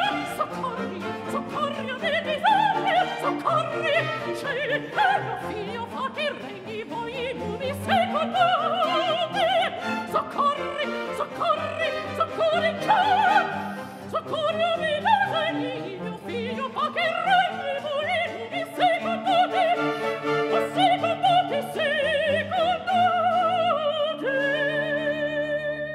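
Mezzo-soprano singing a Baroque opera aria with strong vibrato over orchestral accompaniment, ending on a long held note.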